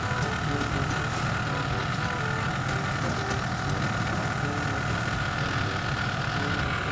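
Steady mechanical running noise with a low rumble and a constant higher hum, unchanging throughout.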